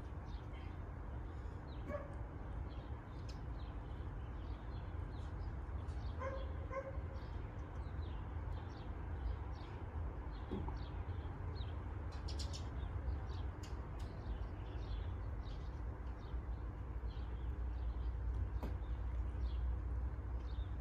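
Small birds chirping steadily, with a dog barking once about two seconds in and twice around six seconds, over a steady low rumble.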